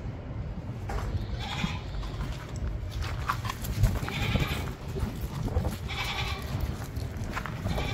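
Goats bleating, about five short calls spread over several seconds, over a steady low rumble.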